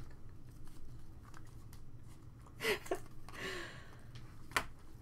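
Stack of glossy Panini Prizm trading cards handled and flipped through by hand: a few sharp clicks as card edges snap past one another, and a brief soft rustle of card surfaces sliding together.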